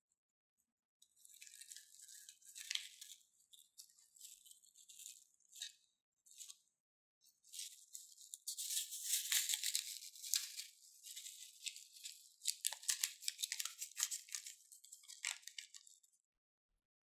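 Slime being squeezed and worked by hand, giving a fine crackling with many small clicks and pops. It comes in bursts and is densest in two stretches in the middle and near the end.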